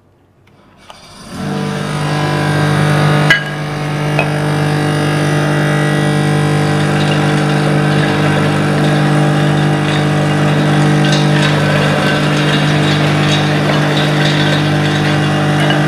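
The electric motor of a Maksindo MKS-SYB66 soybean milk grinder and residue separator switches on about a second in and runs up to a steady hum within half a second. There is a sharp knock about three seconds in. In the later seconds, soaked soybeans and water fed into the hopper are ground, with faint scattered ticks over the hum.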